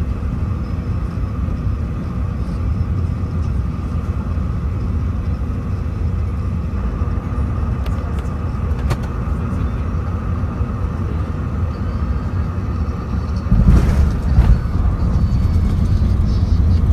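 Airbus A380 landing, heard as a steady low rumble from inside the cabin. There are a couple of faint clicks about eight and nine seconds in, and the rumble suddenly grows louder and rougher near the end.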